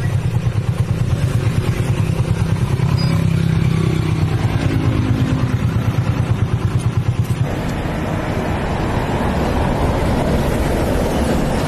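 A motor engine running with a regular low pulse. About seven and a half seconds in it changes to a broader, steadier rushing noise.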